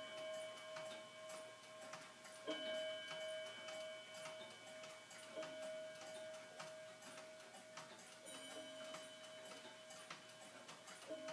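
Schwaerzenbach Black Forest picture-frame wall clock ticking steadily while its movement strikes the hour: a ringing stroke about every three seconds, each one hanging on until the next.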